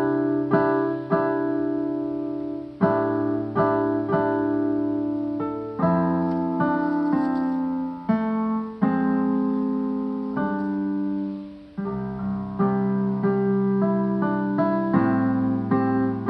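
Piano music: a slow tune played in chords, each chord struck and left to ring out before the next.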